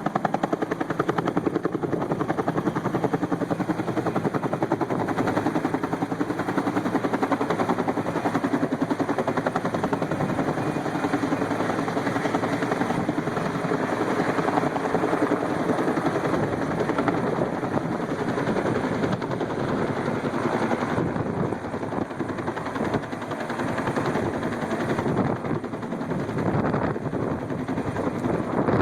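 Helicopter close by, its rotor blades chopping steadily and loudly, lifting cargo-net sling loads out of a landing zone. The chop eases slightly a little past the middle, then returns.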